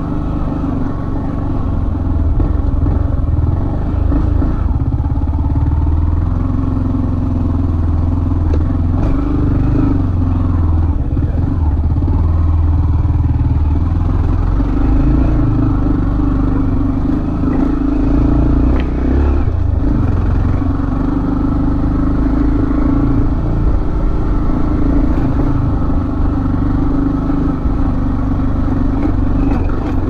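Yamaha MT-15's 155 cc single-cylinder engine running under load as the motorcycle climbs a dirt hill track, its note rising and falling a little with the throttle.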